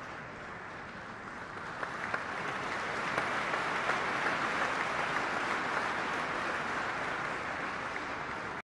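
Audience applauding, swelling about two seconds in and then holding steady, cut off suddenly near the end.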